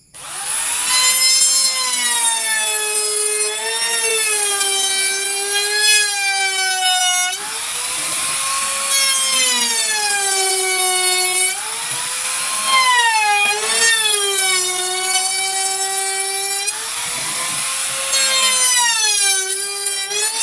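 Electric trimmer router running at high speed and cutting wood in repeated passes. The high motor whine sags in pitch as each cut loads it, then recovers, with bursts of cutting noise.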